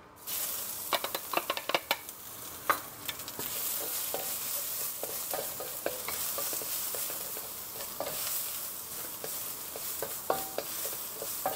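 Aromatics dropped into smoking-hot oil in a wok, sizzling at once and then steadily as they are stir-fried. A wooden spatula clicks and scrapes against the wok throughout, most busily in the first few seconds.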